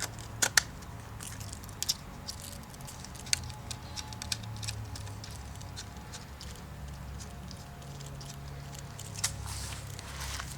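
Irregular light clicks and scrapes of the plastic parts of an Abus Facilo lock frame mount being handled and the lock holder slid into place, with a cluster of clicks near the end. A steady low hum runs underneath.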